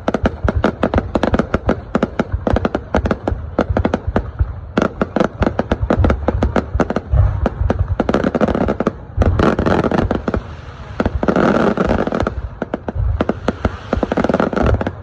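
Fireworks going off in a dense, continuous barrage of rapid bangs and cracks, with stretches of crackling between them.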